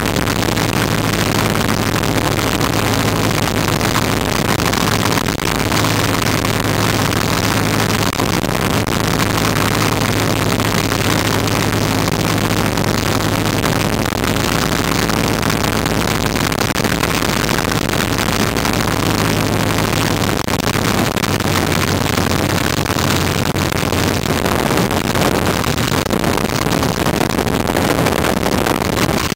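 Piper PA-19 Cub's piston engine droning steadily over rushing air, heard from inside the cockpit on final approach to landing. The low engine note changes about two-thirds of the way in.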